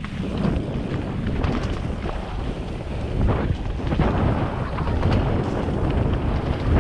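Wind buffeting a helmet-mounted camera's microphone as a mountain bike descends rough dirt singletrack at speed, with a steady rumble of tyres on the trail and frequent short knocks and rattles from the bike over bumps.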